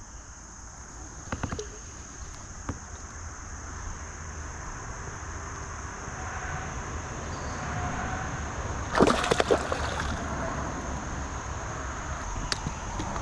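Water sloshing and gurgling, with a steady high insect trill underneath; a brief louder splash about nine seconds in.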